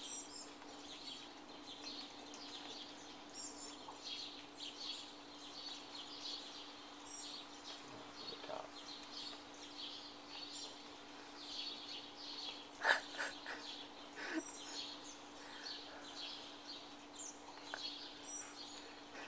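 Small songbirds chirping over and over with short, rising-and-falling notes. A steady low hum runs underneath, and a brief, sharper and louder sound comes about two-thirds of the way through.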